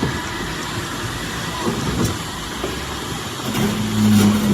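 Heavy diesel engine running with a steady low rumble, growing louder with a steady hum near the end.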